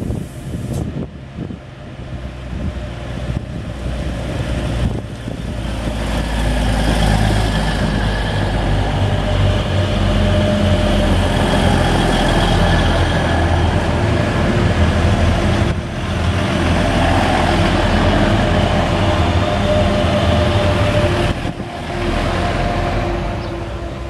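DB class 605 ICE TD diesel multiple unit passing close by, its underfloor diesel engines droning with steady engine tones over the rumble of the wheels. The sound swells as the train comes alongside, stays loud for most of the pass, and falls away near the end.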